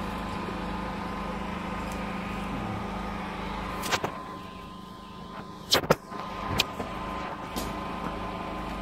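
Portable generator engine running steadily with a constant hum. A few sharp clicks or knocks come about four and six seconds in.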